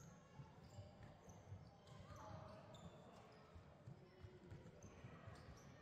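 Faint sound of a youth basketball game on a hardwood gym floor: the ball thudding on the boards amid irregular footfalls, with short sneaker squeaks.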